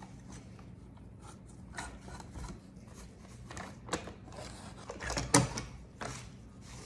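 A baby wipe rubbing over the plastic casing of an RC car, with scattered handling clicks and a sharper knock about five seconds in.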